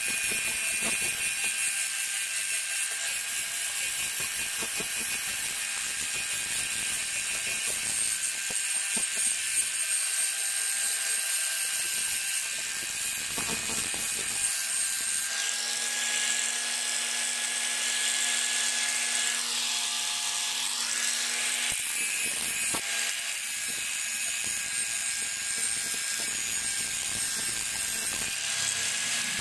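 Electric angle grinder running with its abrasive disc pressed against a steel scissor blade, grinding the metal: a steady high whine over a hiss. The pitch dips and comes back up about two-thirds of the way through.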